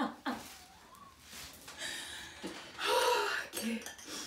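Women's laughter dying away: the tail of a laugh at the very start, then soft breathy gasps, and a short chuckle about three seconds in.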